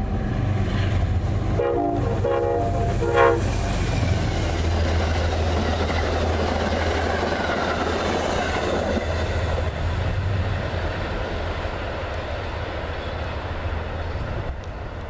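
Amtrak GE P32AC-DM diesel locomotive sounding its horn in short blasts as it approaches, then passing close with a steady engine drone and the rushing, clattering wheel noise of its passenger cars, easing off near the end as the train moves away.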